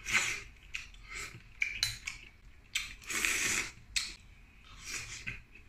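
Shellfish eaten by hand: a few short sucking slurps as meat is drawn from the shells, with scattered light clicks and cracks of shells being handled and peeled.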